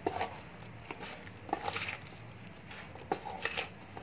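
A steel spoon scraping and clinking against a stainless steel bowl in a few short bursts as spice-coated pointed gourd pieces are tossed and mixed.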